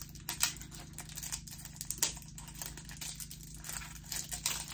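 Hands handling a small, just-opened lip mask package: irregular crinkling and light clicks of the packaging.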